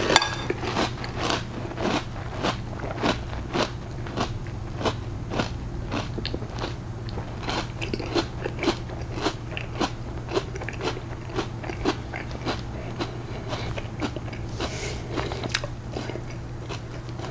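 A person chewing a mouthful of crunchy O-shaped cereal in milk, with short crisp crunches coming about two to three times a second throughout.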